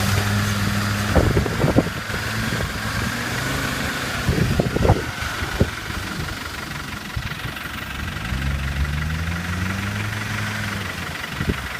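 Diesel Land Rover engine running steadily. Several sharp knocks and thumps come in the first six seconds, and about eight seconds in the engine note rises and then holds.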